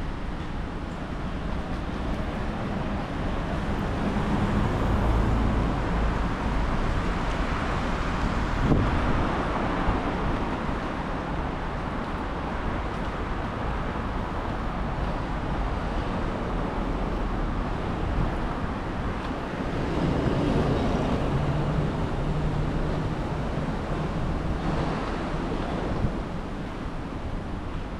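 Strong typhoon wind buffeting the microphone in gusts, over the noise of street traffic with vehicles passing.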